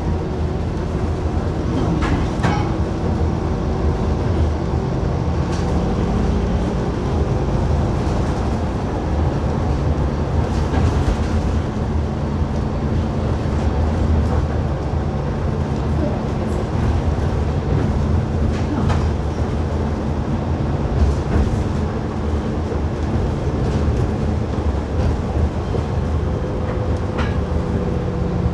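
City bus cabin noise while driving: a steady low engine and road rumble, with a few short knocks and rattles now and then.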